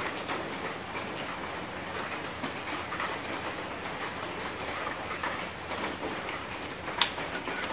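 Ramen noodles and broth being poured from a small metal pot into a bowl, over a steady, even patter like light rain. Two sharp clicks come near the end.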